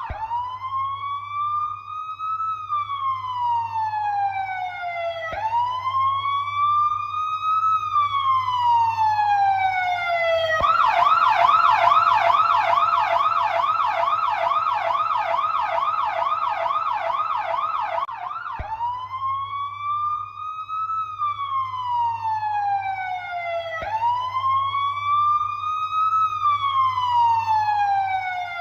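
Police siren in its slow wail, each cycle rising and then falling over about five seconds. About ten seconds in it switches to a fast yelp of about three cycles a second for some eight seconds, then goes back to the wail, with a low steady hum beneath.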